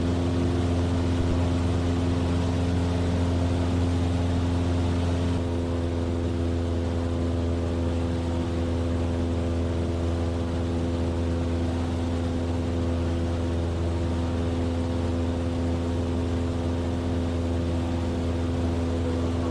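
Cessna 172F's Continental O-300 six-cylinder engine and propeller droning steadily in flight, a strong low hum with steady tones above it. The sound shifts slightly about five seconds in.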